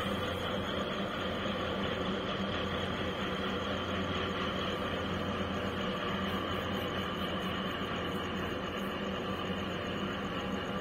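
Marine diesel engines of a container ship and its attending tugboat running with a steady low drone and hum.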